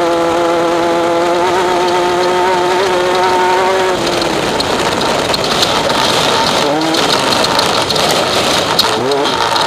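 Off-road race vehicle's engine running at steady, high revs for the first few seconds, then easing off. The rest is a rough rattling and clattering of the vehicle over rough ground, with short rev blips near the end.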